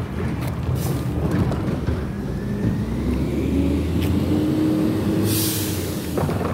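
Garbage truck's diesel engine running with a steady low rumble, its pitch rising slowly as it revs up; about five seconds in, a short sharp hiss of released air from the air brakes.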